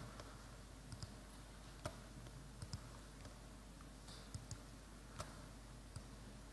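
Faint, scattered computer clicks, about ten irregularly spaced over a few seconds, from an animator working a mouse and keyboard to set poses on a 3D character rig.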